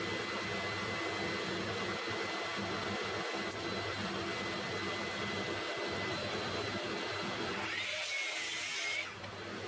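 Workshop vacuum running steadily, a hiss of moving air with a thin high whine, until it cuts off near the end.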